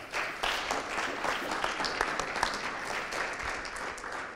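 Audience applauding, many hands clapping in a dense patter that fades out near the end.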